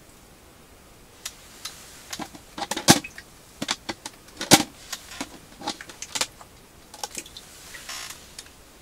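Sharp clicks and clatters of hands working a round plastic live-bait bucket and its lid on the ice. The two loudest knocks come about three and four and a half seconds in.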